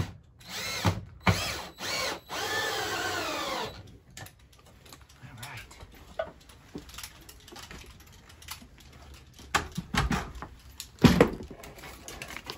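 Cordless drill driving a screw into 2x4 wood blocking: a few short bursts, then a longer run of about a second and a half whose pitch falls toward its end. Later there is light clatter of tools being handled, with two loud knocks near the end.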